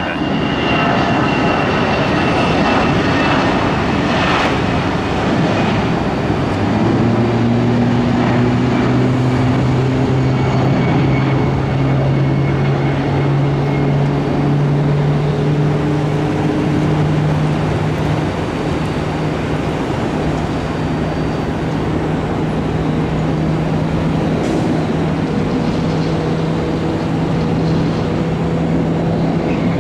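Jet airliner taking off, its engines giving a loud, steady rushing noise with a low drone that sets in about seven seconds in and slowly rises in pitch as the jet climbs away.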